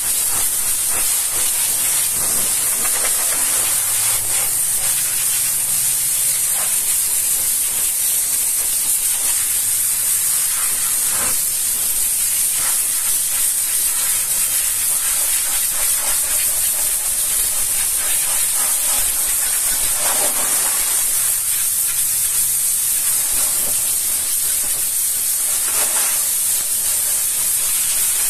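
High-pressure water jet from a pressure-washer wand spraying onto a truck's oily diesel engine, a steady high hiss with brief shifts in tone as the jet moves across the metal parts.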